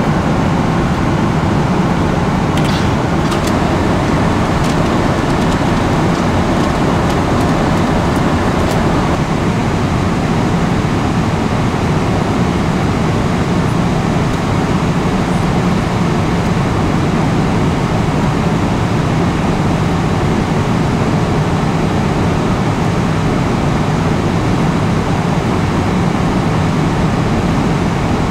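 Steady roar of a Boeing 777-300ER's cabin in cruise, the rush of airflow and engines, even and unchanging. A few faint clicks sound about three to nine seconds in.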